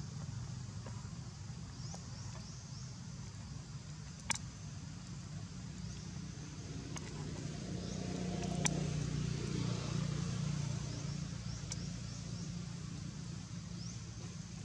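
A steady low motor hum that swells louder about eight seconds in and eases off a few seconds later. Faint high chirps come and go over it, and there are a few sharp clicks, the loudest about four seconds in.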